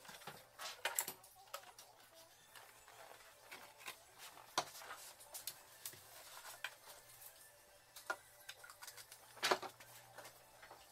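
Handling noises: scattered light clicks and taps of plastic projector parts and small items being moved on a workbench, with one sharper knock near the end.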